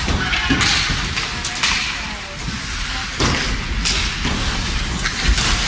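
Ice hockey play heard from the stands: a string of sharp scrapes and knocks from skates, sticks and puck on the ice, about a dozen in a few seconds, over a low rink rumble and crowd murmur.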